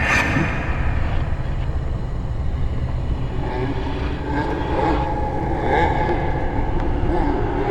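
Horror sound-effect ambience: a steady low rumbling drone, joined about three seconds in by eerie wavering pitched sounds.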